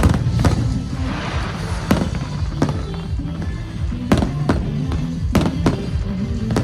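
Fireworks shells bursting in a display, about eight sharp bangs in quick succession, with a crackling shower about a second in. Music plays underneath.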